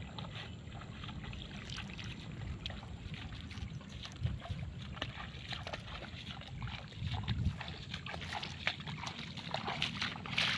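Footsteps sloshing through shallow floodwater, then swishing through wet grass, with a wet cast net being carried. The small rustles and clicks grow busier in the last few seconds.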